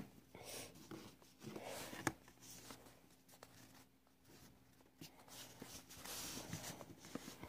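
Faint rustling and tapping of a stack of Pokémon trading cards being handled and squared up, with a sharper click about two seconds in.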